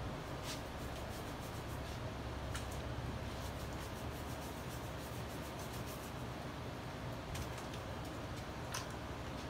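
Steady low machine hum in a small room, with a few faint ticks and soft rubbing from hands working wet plaster-soaked fabric.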